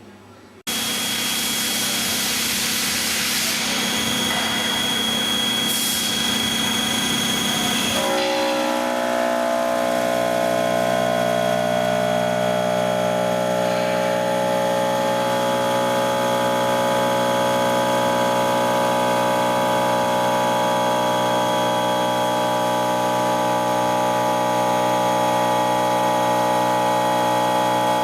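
Kinetic K4000 table's milling spindle running while it mills. The sound comes on suddenly about a second in as a loud hiss, then about eight seconds in settles into a steady machine whine of many tones.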